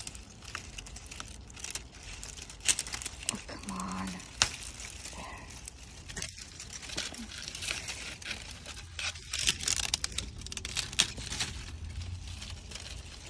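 Rustling and crinkling of grape vine leaves and protective netting as hands work a heavy grape bunch loose, with many scattered sharp clicks and crackles.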